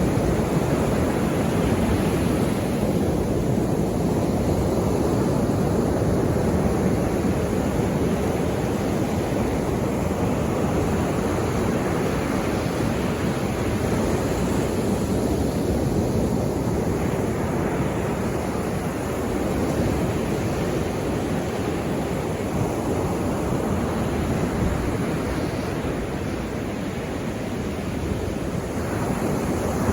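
Sea waves breaking and washing on the shore, a continuous rushing surf that swells and ebbs slowly.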